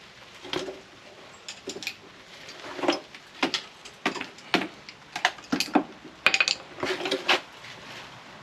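Small metal parts and tools clattering and clinking as they are handled and moved about: an irregular run of sharp knocks and clinks, coming thicker after about a second.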